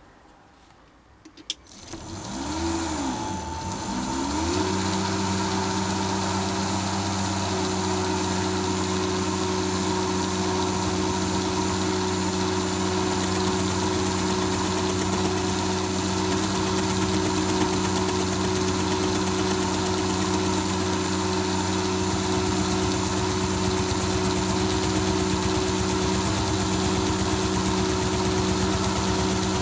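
Chinese mini lathe switched on with a click, its motor spinning the chucks up with a rising pitch over a few seconds, then running steadily at speed with a high, thin whine over the hum.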